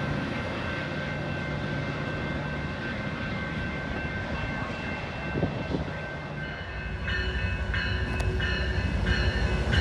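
Metra bilevel commuter train rolling past over a grade crossing, a steady rumble of wheels on rail. About seven seconds in, another train is heard approaching a crossing, its rumble growing louder under high ringing tones that start and stop.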